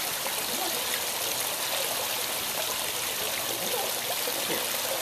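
Steady rush and splash of water from a pool waterfall spilling over a ledge into the pool.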